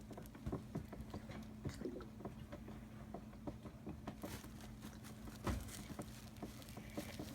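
A cat's laboured, congested breathing, heard as irregular soft clicks and crackles, over a steady low hum.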